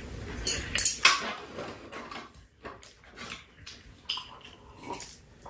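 Metal chopsticks clicking and tapping against plates and bowls during a meal: a few sharp clicks, the loudest about a second in, then fainter scattered taps.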